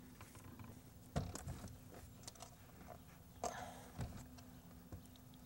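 Faint, scattered light knocks and a brief scrape from a weather-strip piece being handled and positioned against a door frame, over a low steady hum.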